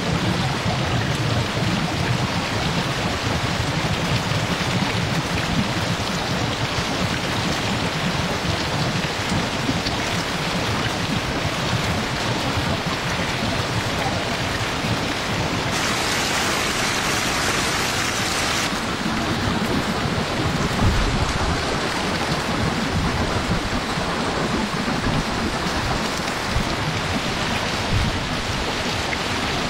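Water gushing and splashing down a concrete chute with a mass of eels sliding in it, a steady rushing noise that turns hissier for a few seconds past the middle.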